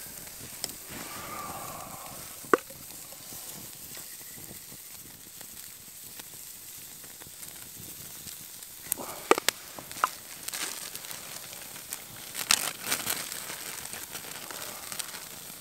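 Steak sizzling on a wire grate over campfire coals, a steady hiss with the fire crackling: scattered sharp pops and clicks, bunched most thickly about three-quarters of the way through.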